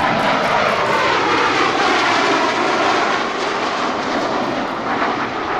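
Blue Angels F/A-18 Hornet jets flying past in close formation: a loud, steady jet-engine roar that eases slightly over the last couple of seconds.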